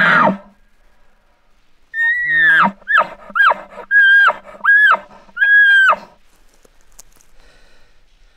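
A bull Roosevelt elk calling: a high whistled note, then five short whistled notes in quick succession, each falling off sharply, with a low growl underneath throughout. It is a loud bugle-and-chuckle series beginning about two seconds in.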